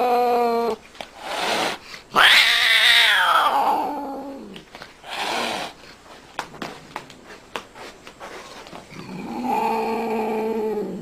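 A cat yowling in long drawn-out calls. The loudest, about two seconds in, starts high and slides down in pitch. A shorter call follows, then a few light clicks, and another steady yowl near the end.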